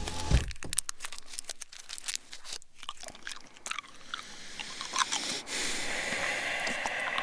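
Plastic wrapper being crinkled and torn with a crackling rustle, after a single low thump about a third of a second in, with chewing mixed in.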